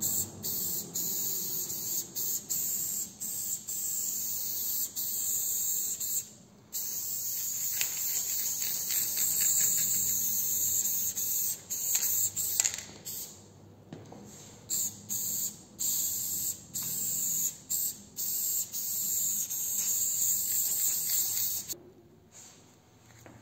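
Aerosol spray paint can hissing in long sprays, with many short breaks where the nozzle is let go.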